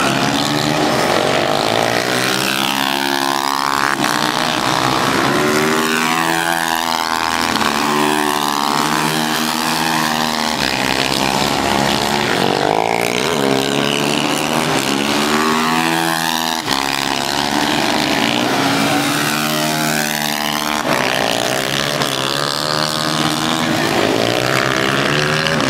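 Supermoto race motorcycles running hard around the circuit. Loud engine note rising in pitch as they accelerate through the gears, then dropping at each shift and braking, over and over, with more than one bike heard at once.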